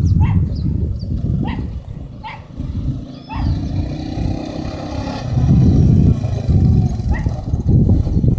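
Honda FourTrax 420 ATV's single-cylinder four-stroke engine running as the quad is ridden across dirt, its revs rising and falling about halfway through. A dog barks repeatedly over the first few seconds and once more near the end.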